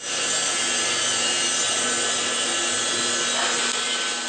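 PowerCraft metal-cutting bandsaw running, its blade cutting through a steel bar: a steady rasping cut with a few faint steady tones underneath.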